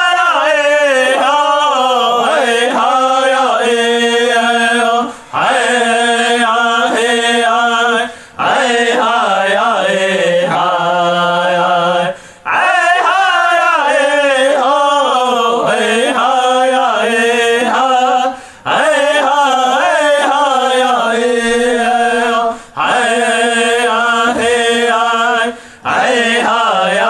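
Unaccompanied chanting of a Lakota/Dakota prayer song: long sung phrases with sliding, wavering pitch, broken by short breath pauses every few seconds.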